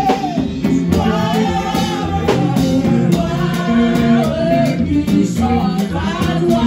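Gospel worship music: singing over a full band accompaniment with drum strokes.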